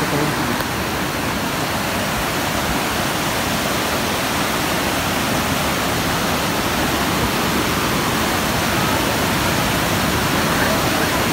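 Muddy river in flood rushing over and through a bamboo fish weir (yana): a loud, steady wash of cascading water, the current running strong.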